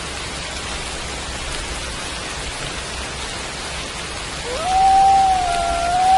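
Steady rain falling. About four seconds in, a wolf howl begins, sliding up and then holding one long note.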